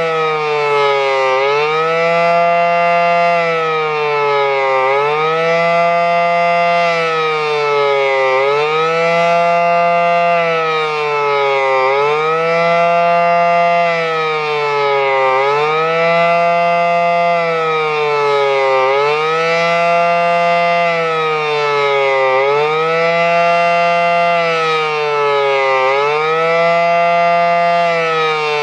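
Federal Signal SD-10 electromechanical outdoor warning siren sounding its fast wail test signal: a loud, steady wail whose pitch dips and swings back up about every three and a half seconds.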